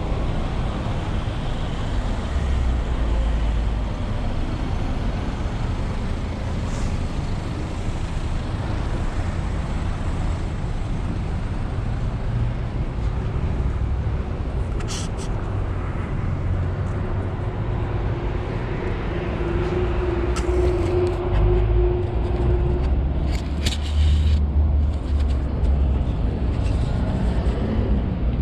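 Steady outdoor traffic noise with wind rumbling on the microphone, and a few brief clicks.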